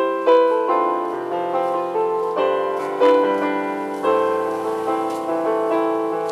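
Electronic keyboard played with both hands on a piano voice: a slow melody over chords and a bass line, each note struck and then fading.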